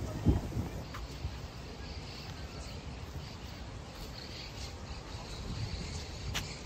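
Outdoor park ambience: faint birds chirping over a steady low rumble, with a dull knock about a third of a second in and a sharp click near the end.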